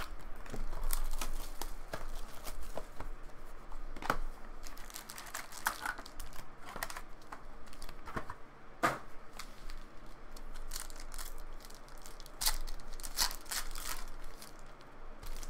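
Foil wrappers of Panini Chronicles Draft trading card packs being torn open and crinkled by hand, in scattered sharp crackles and rustles.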